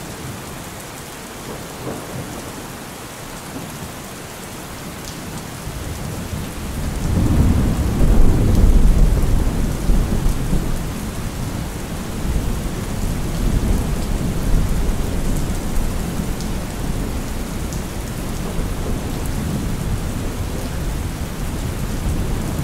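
Steady rain, with a deep rumble of thunder that builds about six seconds in, peaks a couple of seconds later and keeps rolling.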